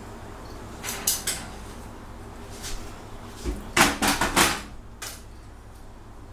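Kitchen items being handled at a stove: three short knocks about a second in, then a louder run of clattering knocks around four seconds in.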